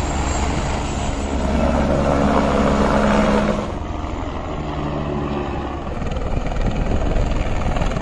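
Helicopter turbine and rotor noise, a steady loud whir with low engine tones. The sound changes abruptly about three and a half seconds in, becoming a little quieter and duller.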